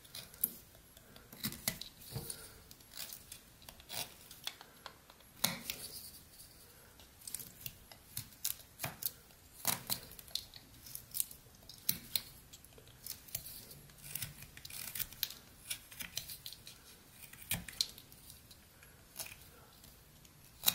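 Rough Rider pocket knife blade cutting into old pine: a string of short, irregular slicing scrapes as thin chips are carved away.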